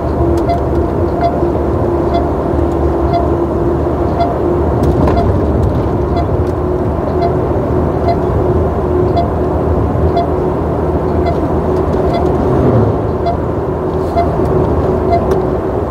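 DAF truck engine and drivetrain running at road speed, heard inside the cab as a steady drone with a held whine. A light tick repeats about one and a half times a second.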